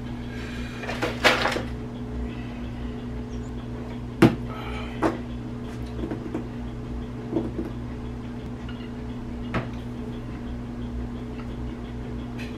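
A steady low hum with a handful of scattered light knocks and taps. There is a rustle and knock a little after one second and the sharpest knock at about four seconds, with fainter taps later.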